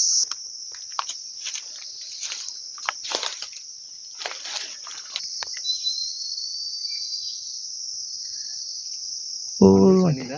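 Steady, high-pitched drone of a forest insect chorus, with scattered rustles and cracks in the first half.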